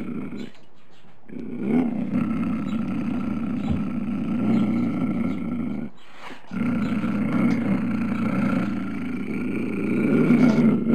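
Tiger sound effect: long, low rumbling growls and roars, broken by two short pauses and loudest near the end.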